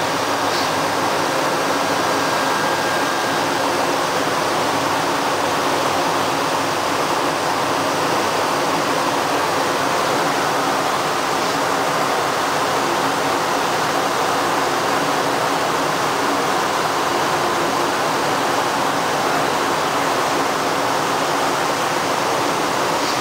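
Steady rushing and churning of water surging into a canal lock chamber as it floods.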